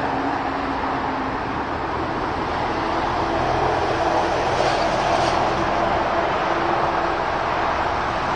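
Steady rumbling noise with a hiss, even in level throughout and without breaks.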